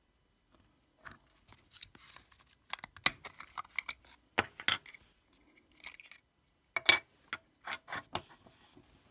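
Hard plastic clicking, creaking and snapping as the Sonoff Basic's snap-fit case is prised apart by hand, with scraping handling noise in between. The sharpest snaps come about three, four and a half and seven seconds in.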